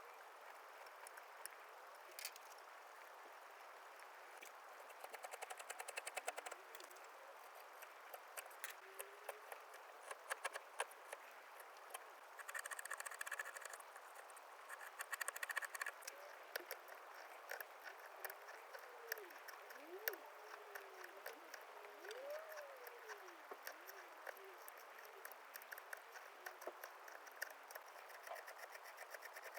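Hand carving tools cutting and paring cherry wood: scattered small clicks and short scraping strokes, with denser runs of scraping a few seconds in and again near the middle.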